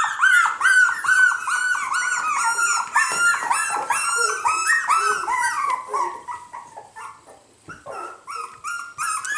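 Young cockapoo puppies whining and yipping in a rapid string of short, high calls, several voices overlapping. The calls thin out and grow quieter for a couple of seconds near the end, then pick up again.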